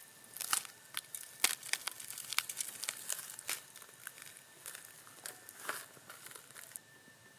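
Crinkling and crackling: a run of sharp, irregular crackles that stops shortly before the end, over a faint steady high tone.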